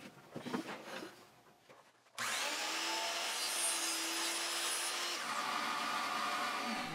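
Compound miter saw running and cutting through crown molding laid flat on the saw. It starts suddenly about two seconds in and runs steadily until near the end. A few faint knocks come before it as the saw's angles are reset.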